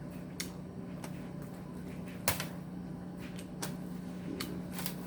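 Scattered light clicks and taps, with one sharper knock a little past two seconds in, over a steady low hum.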